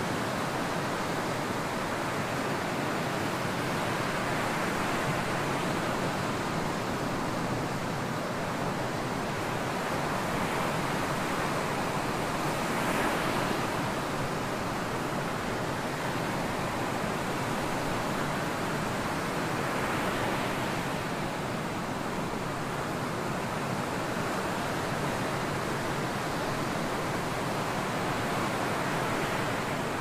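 Ocean surf breaking offshore and washing up a sandy beach: a steady rush of waves, swelling slightly twice as bigger waves break.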